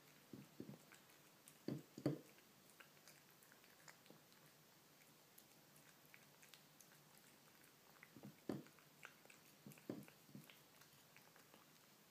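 Kitten eating wet canned cat food with chicken tenderloin: faint, soft chewing and mouth clicks in a few short clusters, the loudest about two seconds in and again near eight and a half and ten seconds.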